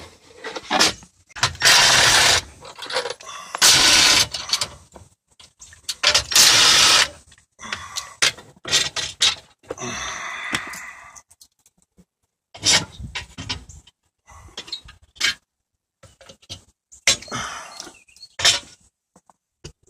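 Hands working on car dashboard parts: scattered knocks, clicks and scraping of plastic trim and metal brackets. Four louder scraping or rustling noises of about a second each come in the first half, and sparser clicks follow.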